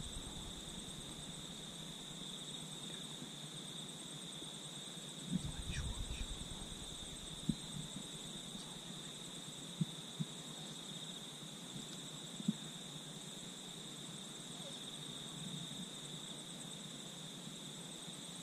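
Insects in the grass chirring in a steady high drone, with a brief low rumble about five seconds in and a few faint ticks.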